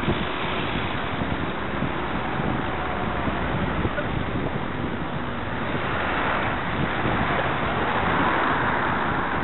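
Wind rushing over the microphone of a bicycle-mounted camera while riding, mixed with road and traffic noise, played back at double speed. The rush grows louder and brighter about six seconds in.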